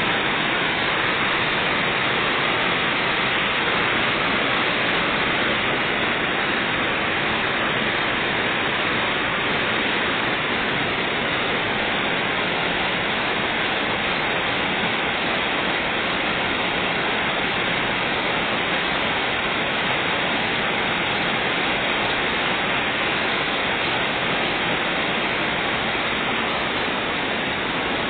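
Heavy rain falling steadily, a dense even hiss with no breaks.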